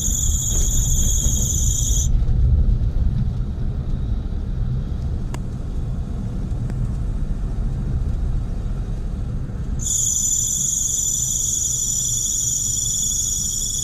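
Daihatsu Mira ES alternator belt squealing, a loud high-pitched steady shriek over the low rumble of the running car. It sounds for about the first two seconds, stops, and starts again for the last four seconds. The squeal comes on as the accelerator is released and the alternator takes up its charging load, the sign of a dry, worn belt.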